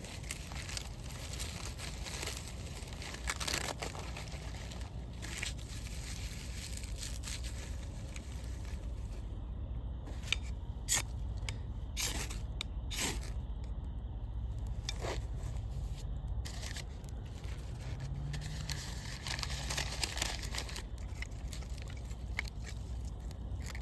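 Dry sticks and tinder being handled and broken to build a campfire: scattered sharp snaps and crunches over rustling and scraping.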